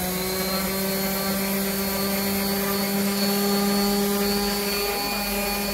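Handheld electric sander running at a steady pitch while sanding a wooden slat.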